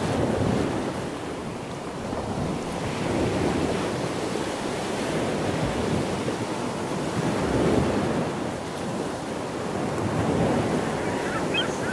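Choppy water sloshing and slapping, with wind buffeting the microphone. The rush swells and eases every few seconds.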